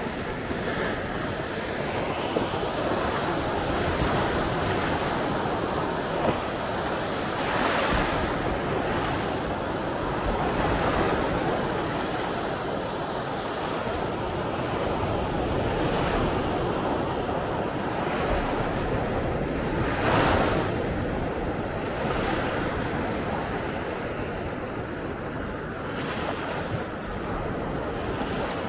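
Sea waves washing onto a beach, the surf swelling and breaking every few seconds, with wind buffeting the microphone.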